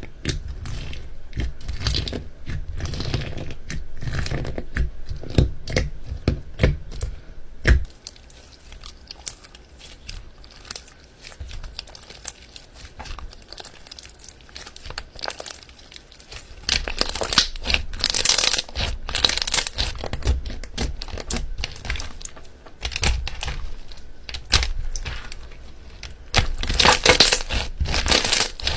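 Slime being pressed and stretched by hand, giving off a dense run of small crackles and pops. The sound thins out and quietens partway through, then grows loud and busy again later on.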